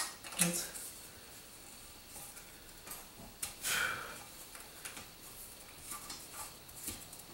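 Hands fitting the cable connector of a bidet pop-up drain underneath the bowl: small scattered clicks and fumbling, with one sharp click at the start and a louder rustle about four seconds in.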